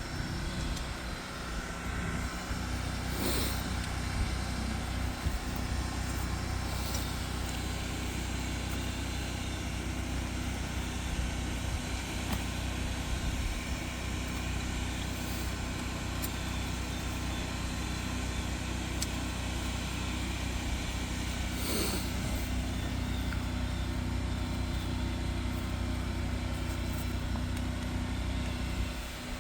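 Sewer jetter's engine running steadily at a constant speed, with two brief knocks.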